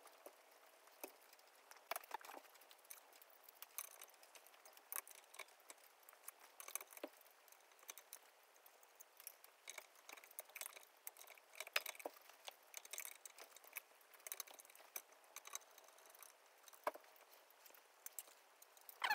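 Faint, scattered small clicks and rattles of hands working at the open switch housing of a ceiling fan, among its wires and metal pull chains, played back sped up.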